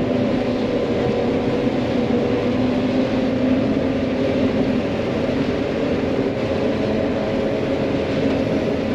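John Deere 9500 combine running steadily while harvesting corn, heard from inside the cab: an even mechanical drone with a steady hum.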